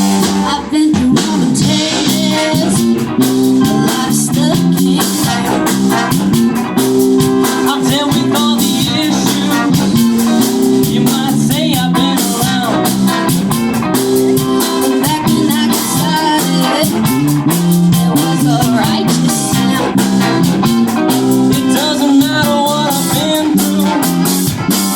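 Live band playing an upbeat groove, with electric guitar over a steady drum kit beat.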